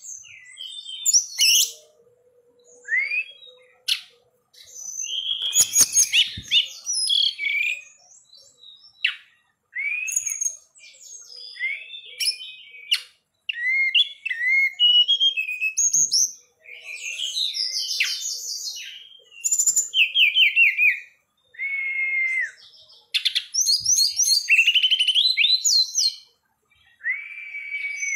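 A caged tledekan gunung singing vigorously: a near-continuous run of high, varied whistled phrases and rapid note series, with short pauses between them.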